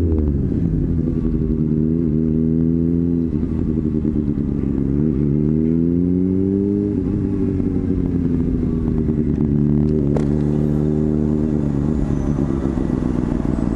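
Honda CBR600RR inline-four with an aftermarket MGP exhaust, heard from the rider's seat while riding at low speed. The engine pitch dips, rises briefly, then climbs again for a few seconds under gentle throttle before settling and slowly falling. A single sharp click comes about ten seconds in.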